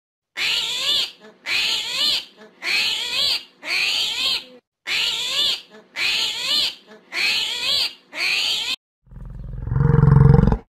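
Animal calls: eight short, wavering calls repeated at an even pace, then one longer, deeper and louder call near the end.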